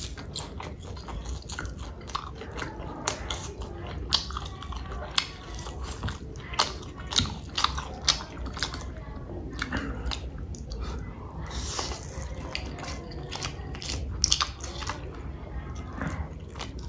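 A person chewing and biting food close to the microphone: irregular wet smacks and sharp mouth clicks, with a few louder bites scattered through.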